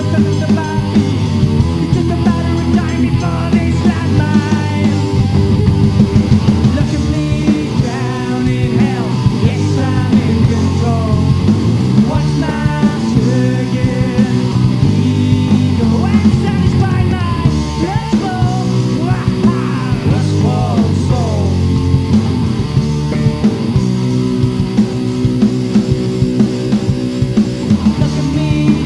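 Rock band playing: bass, drums and guitar at full tilt, with a lead line that bends and slides in pitch through the middle of the passage.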